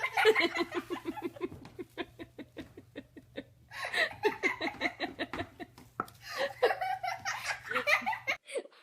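A person laughing hard: a quick run of ha-ha-ha pulses, about seven a second, then more laughter that cuts off suddenly near the end.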